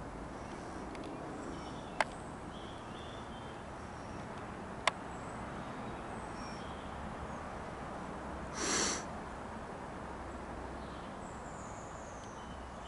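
Distant Airbus A320neo airliner on descent, its CFM LEAP-1A jet engines making a steady, even noise. Two sharp clicks break in about two and five seconds in, and a short hiss about nine seconds in is the loudest sound.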